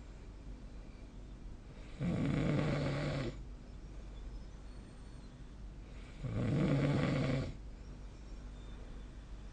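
A sleeping person snoring: two low-pitched snores about four seconds apart, each lasting a little over a second.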